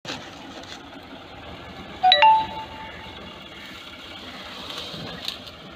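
A short electronic chime about two seconds in: a few quick stepped notes, then one held note for under a second, over steady low background noise.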